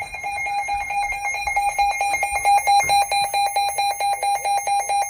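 Electronic weather-alert alarm beeping: a high, rapidly pulsing beep, several pulses a second, sounding the alert for a severe thunderstorm warning.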